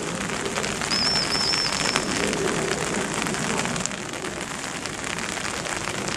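Rain falling steadily, with many close drop ticks. About a second in, a brief high warbling whistle sounds for under a second.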